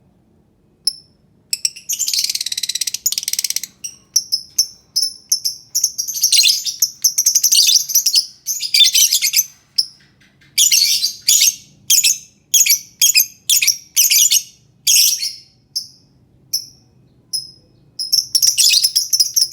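Lovebird chattering. About a second and a half in, a dense, rapid high-pitched trill starts. It is followed by a run of separate sharp, shrill chirps at roughly two a second, and another dense trill comes near the end.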